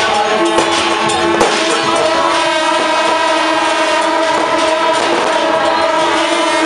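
Loud music from several long, held horn-like notes sounding together over a dense din.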